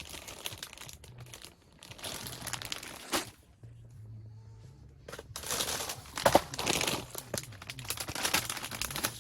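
Crinkling and rustling in three bursts, the longest filling the second half, with a sharp knock about six seconds in.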